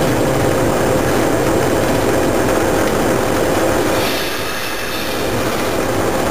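A train running along the line, heard from inside the driver's cab: a steady rumble of engine and wheels on rail with a held whine. About four seconds in the sound dips for about a second while a hiss rises, then the running noise returns.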